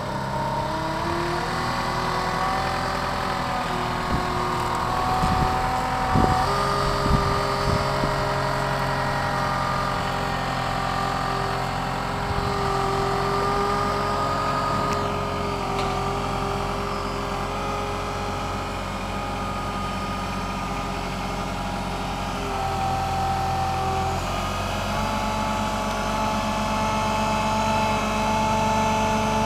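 An engine running steadily, its pitch shifting up and down a little now and then, with a few knocks about six to seven seconds in.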